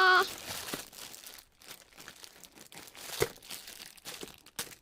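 Plastic packaging crinkling and rustling as a squishy in its bag is handled, with one sharp click about three seconds in.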